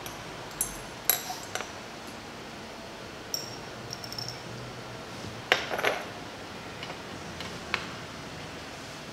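Glass lab ware clinking and tapping: a dropper and test tubes knocking lightly against each other and the test-tube rack. There are about a dozen short clinks scattered through, the loudest cluster a little past halfway, over a steady hiss.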